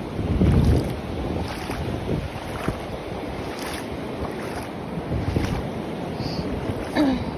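Shallow seawater swishing around the legs of someone wading, with wind buffeting the microphone in low rumbling gusts, the strongest just after the start. A brief sound falling in pitch comes near the end.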